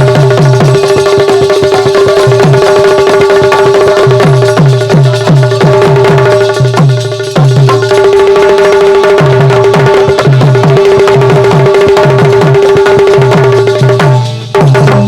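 Instrumental folk music with no singing: a hand drum keeps a brisk rhythm of deep bass strokes under a steady, held melody tone, with a short break in the drumming about seven seconds in.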